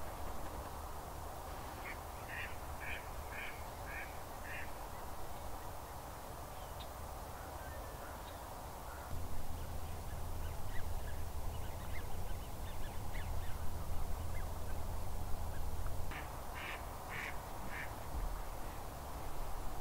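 Waterfowl calling: a quick series of about six short calls a couple of seconds in, scattered calls in the middle, and another cluster near the end, over a steady low background rumble that gets louder about halfway through.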